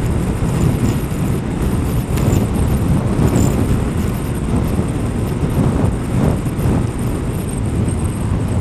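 Wind buffeting a motorcycle-mounted microphone while riding at road speed in strong, gusty wind: a loud, dense low rumble that swells and dips, with the motorcycle's running noise underneath.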